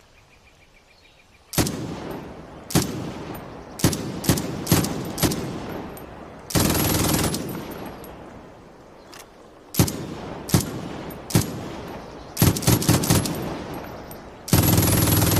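MG-42 machine gun firing: a string of very short bursts, each trailing off in echo, a continuous burst of about a second, then more short bursts. Near the end a long unbroken burst begins.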